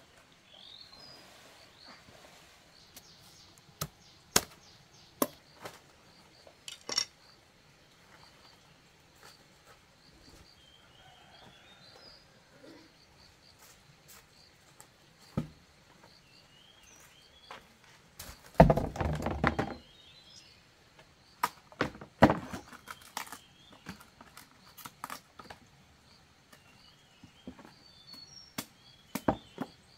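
Scattered knife chops and knocks from cabbages being cut and handled, with birds chirping in the background. A louder clatter lasts about a second a little past the middle, followed by a quick run of knocks.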